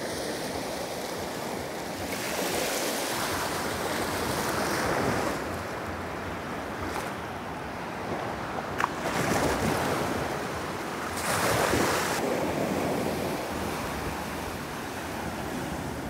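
Ocean surf breaking and washing over the shallows: a steady rushing of water that swells and ebbs every few seconds.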